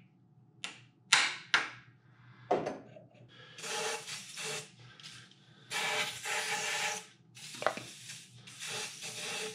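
A few light taps of a tool on a stuck valve of a Ford flathead V8, then a series of hissing sprays from an aerosol can of penetrating oil, each lasting about a second, worked down onto the sticking valve without its straw to free it.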